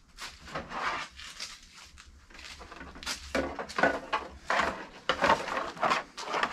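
C4 Corvette halo interior trim panels clattering and knocking as they are picked up and turned over by hand, with a denser run of sharp knocks in the second half.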